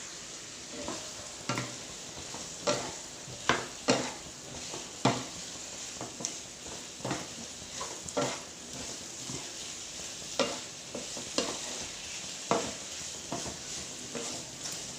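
Fried chicken pieces being stirred into a sizzling masala in a pan: a steady sizzle, broken by irregular knocks and scrapes of the spoon against the pan about once a second.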